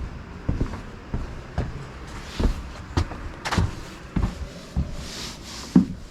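Footsteps thudding on a boat's deck at a walking pace, a little under two steps a second, with a brief hiss about five seconds in.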